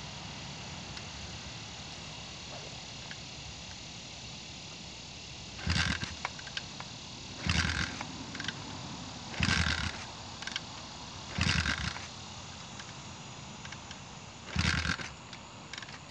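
Five tries at kick-starting an Apollo X19 dirt bike, each a short burst of the engine being turned over without firing, a second or two apart: the ignition key is still off.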